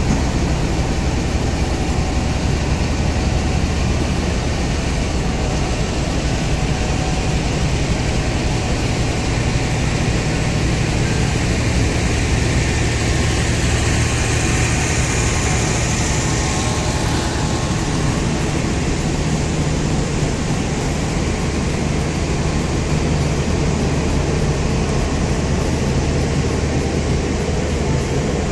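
GE U20C diesel-electric locomotive running under load as the train pulls out, a deep steady engine drone, with the coaches rolling past on the rails. A brighter hiss swells and fades about halfway through.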